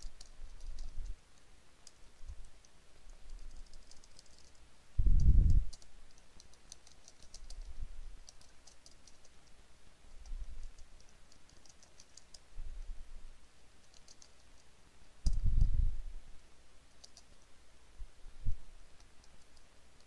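Typing on a computer keyboard in short runs of key clicks, with pauses between. Twice, about five seconds in and again near sixteen seconds, there is a dull low thump that is louder than the typing.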